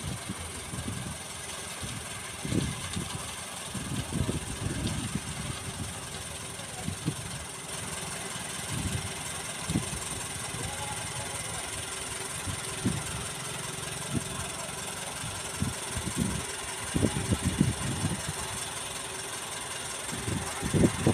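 Transit concrete mixer truck's diesel engine running steadily at a distance while its drum turns and discharges concrete down the rear chute, over a steady hiss. Irregular low thumps come and go several times.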